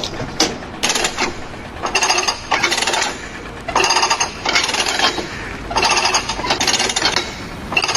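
A power tool hammering in a rapid rattle, run in repeated short bursts of under a second each with brief pauses between.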